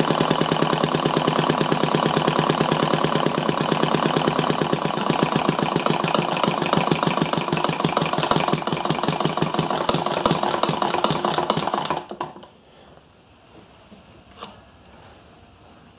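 Thompson model gas engine, built from a casting kit, running with a rapid, even beat that cuts off abruptly about twelve seconds in, followed by a few faint clicks. It is running rougher than usual, which the owner puts down to the cold garage.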